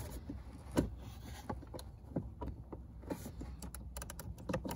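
Small quarter-inch drive ratchet clicking in short, irregular strokes, about two to three clicks a second, as it backs out the screws holding a blend door actuator. One click about a second in is louder than the rest.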